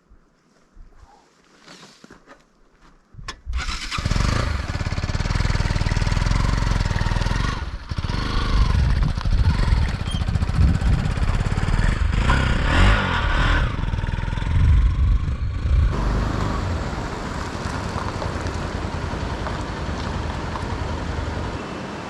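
Motorcycle engine starting about three and a half seconds in and running, its revs rising and falling, then settling into a steady rushing noise from about sixteen seconds.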